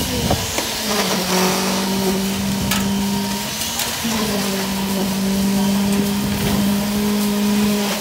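Concrete pump's engine running steadily at high revs while concrete is pumped through the boom hose, its pitch shifting slightly about a second in and again around four seconds, with a few sharp knocks.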